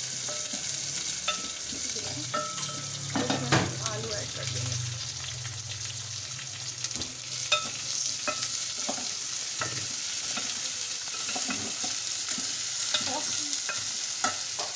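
Chopped onions, then cubed potatoes, sizzling in hot oil in an aluminium pot. A spoon stirs them and clicks and scrapes against the pot, with a louder knock about three and a half seconds in.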